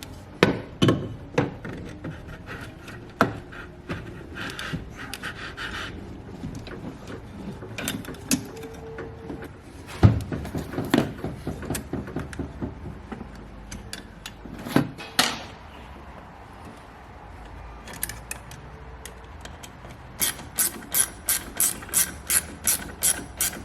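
Hand tools and metal parts knocking and clicking while intercooler pipes and couplers are fitted to a diesel Ford Ranger's engine bay; near the end a ratchet clicks in a steady run, about three or four clicks a second.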